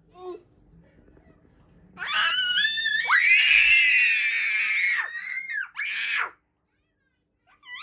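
Young child shrieking in play: a loud, high-pitched scream starting about two seconds in and held for about three seconds, followed by two short squeals.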